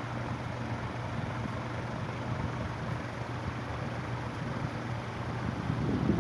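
Venti-Delta New Delta Eco commercial ceiling fan running steadily, blowing air downward: an even rush of moving air over a steady low motor hum.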